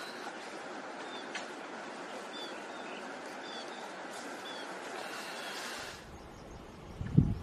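Steady outdoor rushing ambience with a few short, high bird chirps. About six seconds in it cuts to quieter ambience, and a loud low thump comes near the end.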